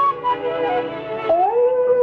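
Background music with several held notes sounding together; one note slides upward near the end.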